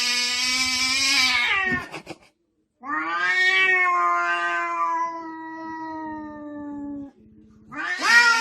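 A cat yowling in long, drawn-out cries. One cry ends about two seconds in. A longer one of about four seconds sags slightly in pitch and fades. A third begins near the end.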